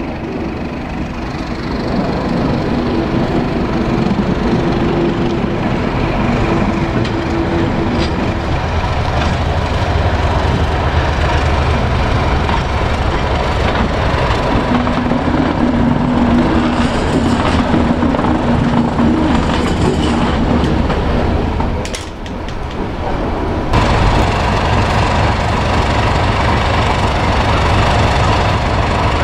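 Brush Type 2 (Class 31) diesel locomotive D5830 running past, its engine giving a steady drone with held low tones. The sound breaks off briefly about three quarters of the way through, then the engine is heard again.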